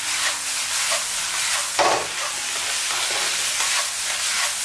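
Eggplant and green peppers sizzling in a wok over high heat while being stir-fried with a wooden spatula, a steady hiss with scraping strokes. One louder spatula stroke a little under two seconds in.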